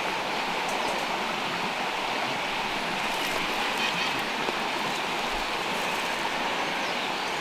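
Steady rushing of a river's running water.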